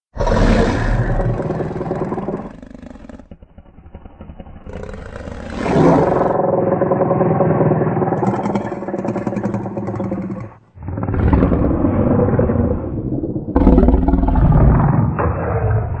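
Indominus Rex creature sound effect: a run of deep, rumbling growls and roars, several separate calls with a brief break partway through, loudest near the end.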